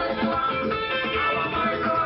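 Live dance band playing an instrumental passage between sung verses.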